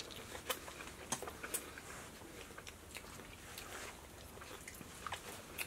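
Faint chewing and eating noises from someone eating barbecue ribs by hand, with a few short, sharp mouth clicks, most of them in the first two seconds.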